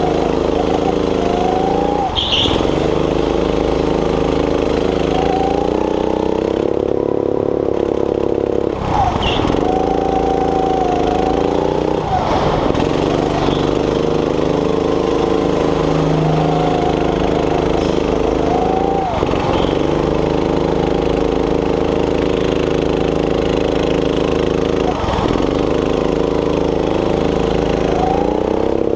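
Rental go-kart's small petrol engine running hard. It holds a steady pitch on the straights, and about five times it drops sharply and climbs back as the throttle is lifted for a corner and reapplied.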